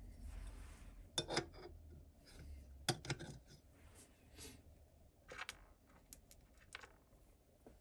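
A metal bolster plate being set onto the metal frames of a model steam locomotive and shifted into place by hand: a few light metallic clicks and knocks, the loudest about a second in and about three seconds in, with smaller ones later.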